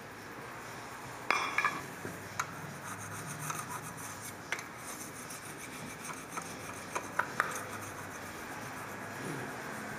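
Hand scraping and rubbing old gasket and silicone residue off the metal water pump mounting surface of a Chrysler 3.8L V6. The scratchy strokes are irregular, with a few sharp clicks around one and a half seconds in and again about seven seconds in.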